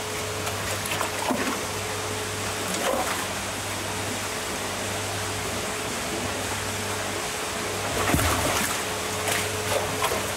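Water churning steadily in an aerated tilapia tank, with a few brief louder splashes as a hand net is swept through to catch fish. A steady low hum runs underneath.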